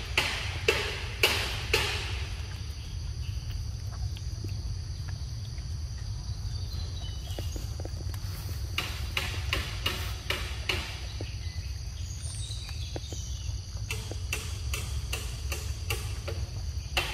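Forest insects droning steadily at a high pitch over a low rumble. Runs of sharp clicks, about two a second, come in the first two seconds and again from about halfway through.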